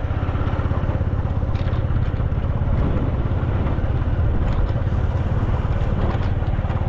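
Vehicle engine and road rumble heard while driving: a steady, low running sound that stays even throughout.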